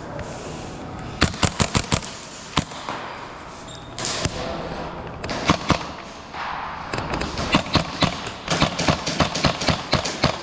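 Airsoft guns firing in quick bursts of sharp shots: a short burst just over a second in, a single shot, a few more shots midway, then a long rapid string of shots near the end.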